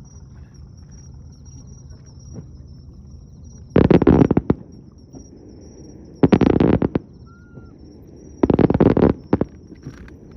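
Aerial fireworks shells bursting: three loud booms roughly two seconds apart, each a quick cluster of sharp cracks lasting under a second, over a low steady rumble.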